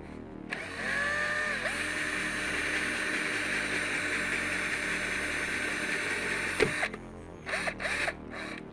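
Makita cordless drill with a hole saw cutting through the boat's hull to make the steering-cable hole: a steady grinding hiss for about six seconds that stops suddenly, followed by a few short bursts of drilling.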